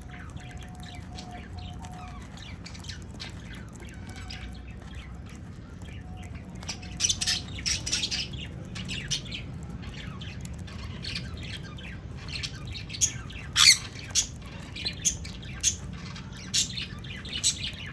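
Pet parrots squawking and chirping in many short calls. The calls grow busier about seven seconds in, and one loud screech comes about two-thirds of the way through.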